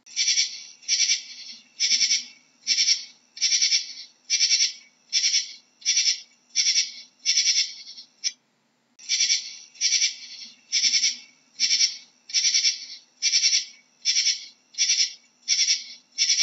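Katydid calling: short raspy chirps repeated a bit more than once a second, with a brief break about halfway.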